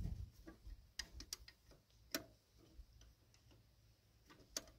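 Faint, irregular metal clicks and ticks of a wrench working the fitting of a hard vacuum line on a GMC 270 engine's cylinder head. There is a cluster of clicks about a second in and a couple more near the end.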